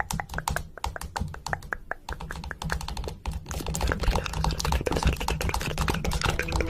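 Fast, uneven clicking like typing on a computer keyboard, over a low steady hum.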